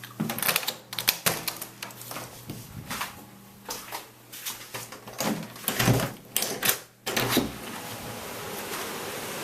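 A run of irregular clicks and knocks, then an abrupt change about seven seconds in to a steady hiss.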